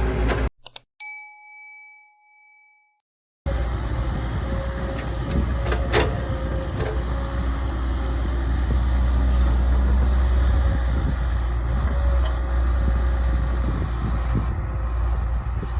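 A single bell-like ding about a second in, ringing out over about two seconds in otherwise dead silence. The low steady running of heavy diesel machinery then comes back, with a sharp metallic clank about six seconds in.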